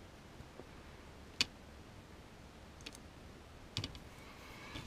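A few small, sharp clicks and taps as the opened telescope hand controller's circuit board and plastic connector parts are handled: one crisp click about a second and a half in, a lighter one near three seconds, and a quick cluster of clicks near the end.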